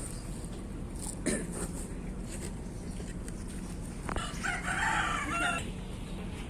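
A rooster crowing once, about four seconds in, over steady low background noise.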